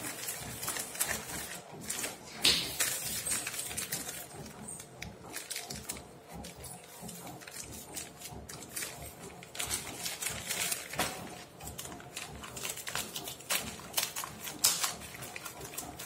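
Scissors snipping and a plastic courier mailer crinkling as it is cut open and handled: irregular rustles and clicks, loudest about two and a half seconds in and again near the end.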